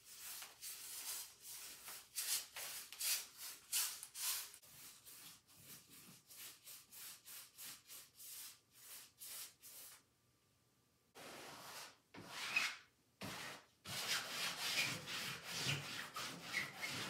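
A wide paintbrush spreading gesso over canvas: a run of quick, scratchy back-and-forth strokes, about two a second, then after a short pause around ten seconds in, longer and denser rubbing strokes.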